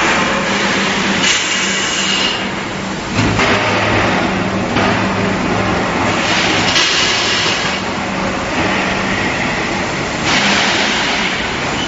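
Loud, steady machinery noise on a steel pipe mill's roller conveyor line: a low hum with a few rushes of hissing noise every couple of seconds.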